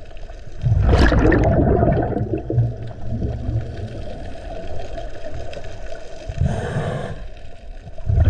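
Scuba diver breathing through a regulator underwater. Exhaled bubbles burble out about a second in and die away over several seconds, then a short inhalation hiss comes near the end, and another exhale starts right at the close.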